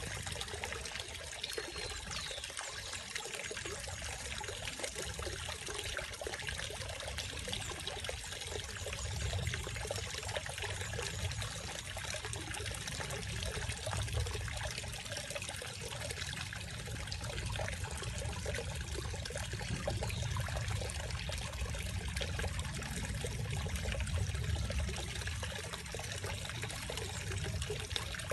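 Small garden fountain spout pouring a thin stream of water into a pond, a steady trickling splash.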